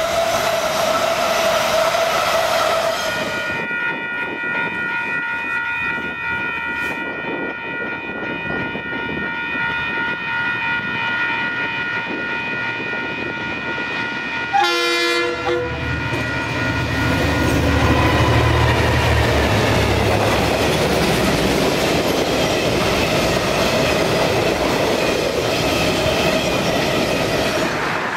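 Passenger carriages rolling past on the rails, then a long steady tone made of several even pitches lasting about ten seconds. From about halfway through, DXC-class diesel-electric locomotives approach with a low rumble.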